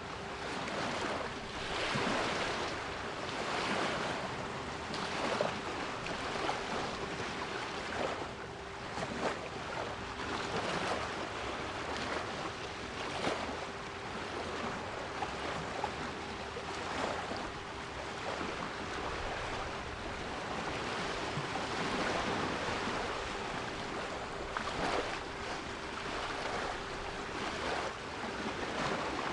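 Sea waves washing and breaking in a continuous rush, with a steady 396 Hz pure tone held underneath.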